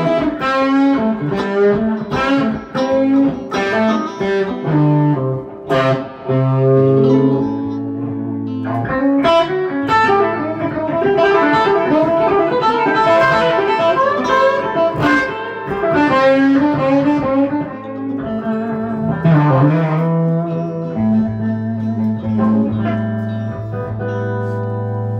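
Electric guitar played solo: a continuous run of picked notes and chords, with one note bent in pitch about three quarters of the way through, ending on low notes left ringing.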